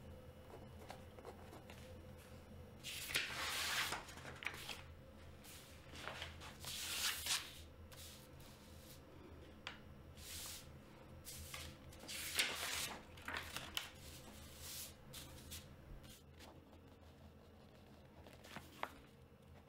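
Pen scratching on paper and sheets of paper rustling, in short bursts of about a second every few seconds, over a low steady hum.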